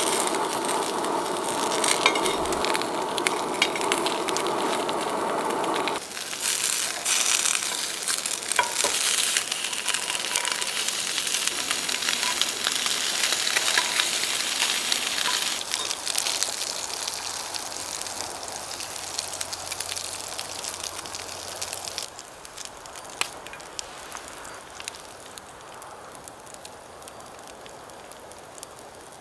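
Food sizzling and frying in a hot pan, with scattered clicks of a utensil stirring. The sound changes abruptly about six seconds in and turns quieter after about twenty-two seconds.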